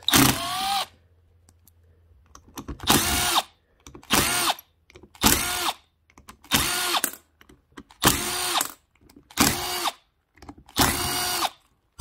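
A cordless power driver with a T20 Torx bit backs the screws out of an Ariens snowblower differential housing. The motor runs in about eight short spurts of roughly half a second each, its pitch rising and then falling, with brief pauses between screws.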